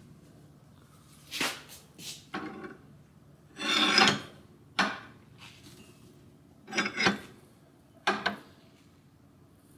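Hand file scraping on a steel knife guard in several separate strokes, the longest and loudest about four seconds in.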